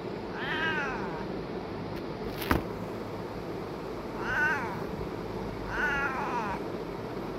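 Cat meowing three times, short meows that each rise and fall in pitch: one near the start and two close together later on. A single sharp click falls between the first and second meows.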